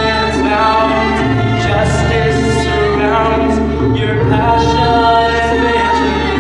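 A choir singing held notes over instrumental accompaniment, including a cello, in a slow song.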